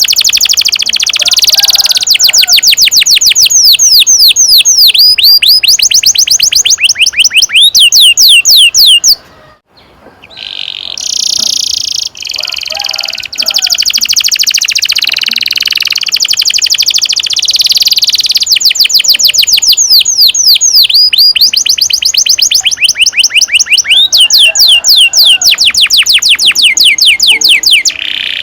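Domestic canary singing long rolls: fast trills of repeated, sharply falling high notes, one phrase after another. The song breaks off briefly about nine and a half seconds in, then resumes.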